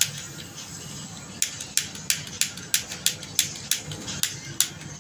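Piezo igniter of a hose-fed handheld gas torch clicking as it is pushed over and over to light the torch: one click at the start, then, after a short pause, a steady run of about three clicks a second. The torch has not yet caught.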